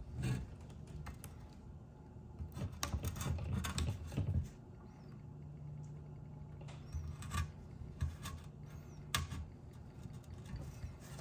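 Scattered light clicks and taps of tools and parts being handled, with a steady low hum for a few seconds in the middle.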